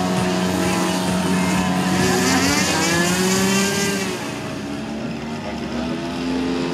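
Radio-controlled model floatplane's motor running as it takes off from the water. Its pitch rises and then falls again about two to four seconds in, as it passes.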